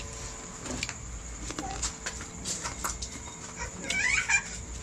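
Spoons and hands clicking against plates and bowls during a meal, with a short wavering animal call about four seconds in.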